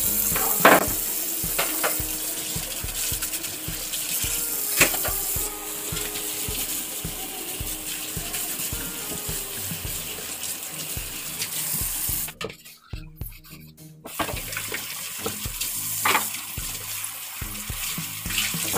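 Kitchen tap running into a stainless steel sink while dishes are rinsed under it, with a few sharp knocks of dishware. The water cuts out for a couple of seconds past the middle, then runs again.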